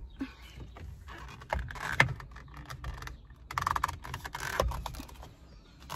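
A steering wheel cover being stretched and worked onto a car's steering wheel by hand: bursts of rubbing and scuffing with a few sharp clicks and taps.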